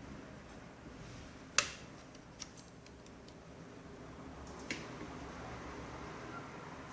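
Sharp clicks of a Toshiba NB550D netbook's parts being handled during disassembly: a loud snap about a second and a half in, a small tick shortly after, and another click near the five-second mark.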